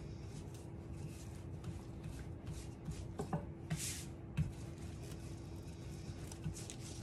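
Wooden rolling pin rolling pastry dough out on parchment paper over a wooden counter: soft rustling of the paper with a few light knocks, and a brief paper swish near the middle as the sheet is turned.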